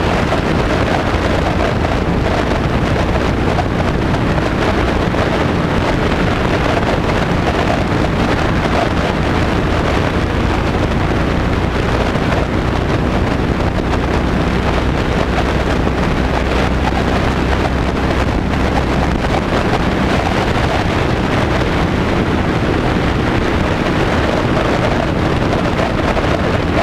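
Heavy wind noise buffeting an action camera mounted on a motorcycle's crash bar while riding, with the motorcycle's engine running steadily underneath.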